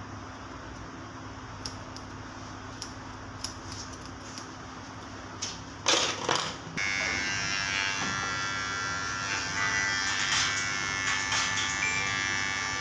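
A few faint clicks, then a short loud clatter, before an electric hair clipper switches on about seven seconds in. It then runs steadily with a buzzing hum as it trims the short hair at the side of the head.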